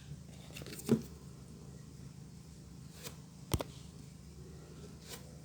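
Four short clicks and knocks over a low steady hum, the loudest about three and a half seconds in: a mobile phone being handled and its keys pressed.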